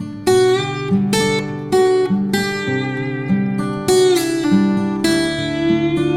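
Background music: acoustic guitar, plucked and strummed notes in a gentle steady rhythm.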